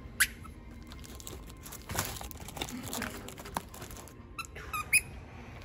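Irregular crinkling and crackling of plastic wrap, densest in the middle, with a couple of short high squeaks about a quarter second in and again near the end.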